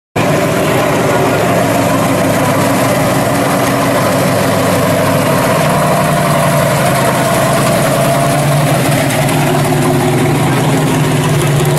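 Engine of a 1970 Chevy Vega pro street drag car running at a steady idle as the car rolls slowly past. The sound cuts in abruptly at the very start.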